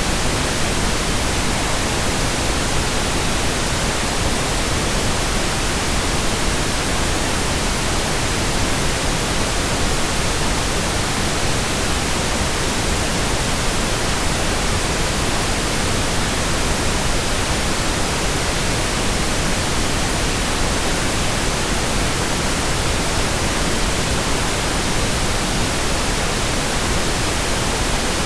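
Steady, even white noise hissing without change or break, a continuous sleep-aid noise track.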